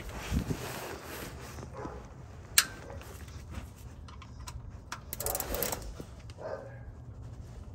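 Handling noises from someone working under a truck: rustling and scattered small knocks, with one sharp metallic click about two and a half seconds in.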